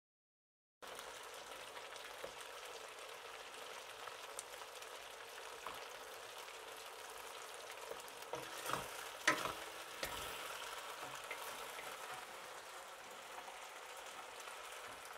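Marinated chicken and beef strips sizzling steadily in a wok of hot oil as they are stirred with a wooden spatula; the sizzle starts about a second in. A few knocks of the spatula against the pan come around eight to nine seconds in, the loudest sounds here.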